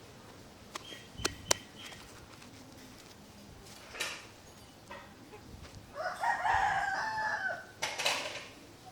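A rooster crows once, a call of about a second and a half, near the end. Earlier come a few sharp clicks, and there are two short rushing noises, one mid-way and one right after the crow.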